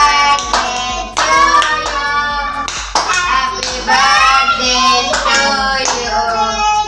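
Singing over music, with a child's voice prominent in a steady melody over a low beat.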